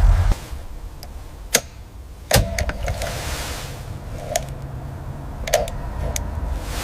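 A car engine running, cutting off a fraction of a second in. Then scattered mechanical clicks and knocks, with a sharp knock about two seconds in that is the loudest.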